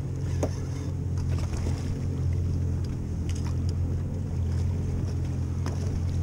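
Boat's outboard motor idling with a steady low hum, with wind and water noise and a few faint clicks and knocks.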